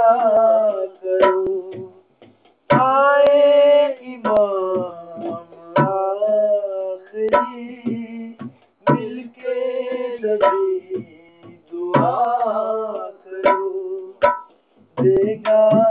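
A man singing a slow, ornamented melody in long held phrases with vibrato. Sharp percussion strokes fall between the phrases.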